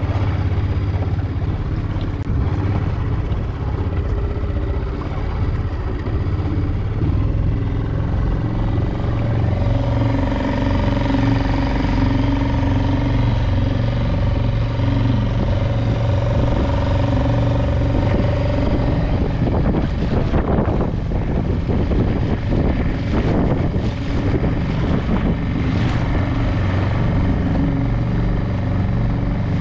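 Small outboard motor driving an inflatable dinghy at a steady speed, with a constant low drone. Rushing, splashing water and wind noise grow stronger over the last third.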